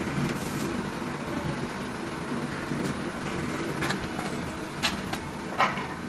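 Steady hum of shoe-factory machinery, with a few sharp clicks or knocks in the second half.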